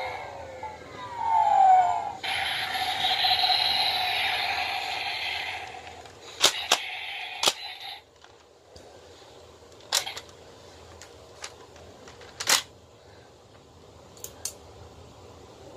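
Electronic sound effects from the speaker of a Gaburevolver toy gun: gliding tones, then a loud noisy blast over a steady tone that cuts off about eight seconds in. After it come several sharp plastic clicks from the toy being handled.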